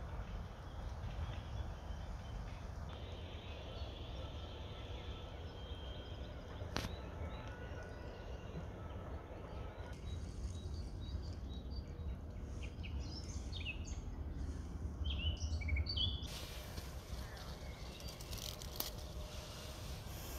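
Outdoor ambience: a low steady rumble with short bird chirps in the second half, and a brighter hiss from about sixteen seconds in.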